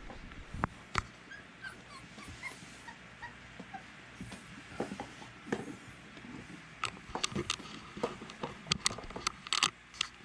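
Beagle puppies whimpering in short, high squeaks, amid the scuffle and clicking of small paws and bodies against the floor and pen. A flurry of sharp knocks and clatter comes in the last few seconds.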